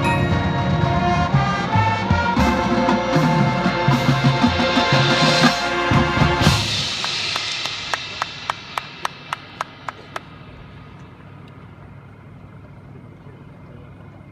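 Marching band, with brass and a front ensemble of marimbas and timpani, playing a loud full passage that cuts off about six and a half seconds in. A run of evenly spaced sharp clicks follows, about three a second, for a couple of seconds.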